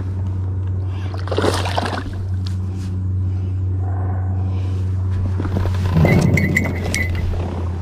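A steady low hum, with bursts of rustling and knocking from gear being handled in an inflatable boat about a second and a half in and again about six seconds in.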